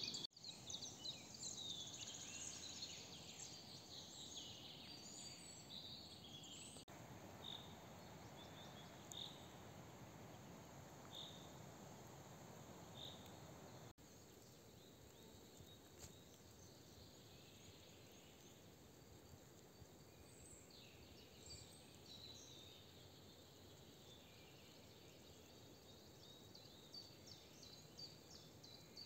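Faint outdoor forest ambience with songbirds chirping: rapid trills early on, then single short high call notes about every two seconds. The background noise changes abruptly twice.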